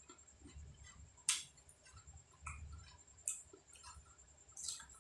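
Close-miked eating sounds: faint chewing with scattered small ticks and three sharp mouth clicks, the loudest about a second in.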